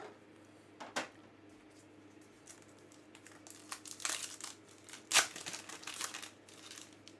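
A trading-card pack's wrapper crinkling and tearing as it is opened by hand: one crackle about a second in, then a run of crackles from about four seconds, the loudest just after five seconds.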